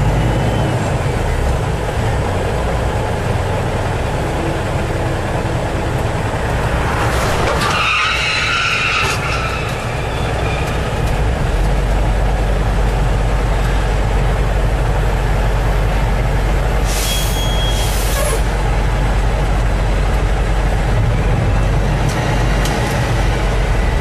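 Steady engine and road noise inside the cab of a large truck or bus, with a brief louder sound about seven seconds in and two short hisses near seventeen seconds, typical of air brakes.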